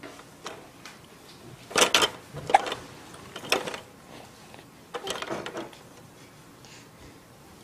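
Plastic toys on an Evenflo Exersaucer baby activity centre clacking and rattling as they are knocked about, in short irregular bursts, with a longer rattle about five seconds in.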